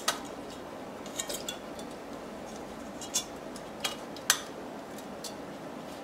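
Scattered light metallic clicks and taps, about half a dozen over a few seconds, as the fan clips and fan are worked loose from a Noctua NH-U14S tower CPU cooler's fins. A faint steady hiss runs beneath.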